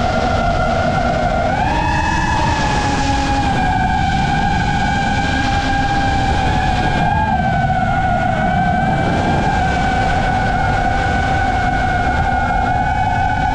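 Quadcopter drone's motors and propellers whining at high speed, a steady high pitch that steps up about two seconds in and then slowly sags, over a heavy rush of wind.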